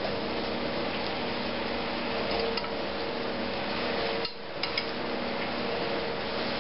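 Faint light clicks and clinks of hands handling stuffed fish fillets in a glass baking dish: a couple about two seconds in and a small cluster past the four-second mark, over a steady room hum and hiss.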